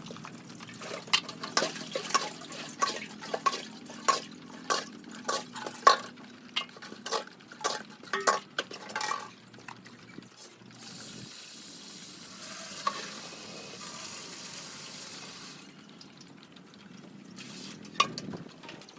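Irregular sharp clicks and clatter of hard objects for the first half, then a few seconds of steady hissing like running or pouring water, and one last click near the end.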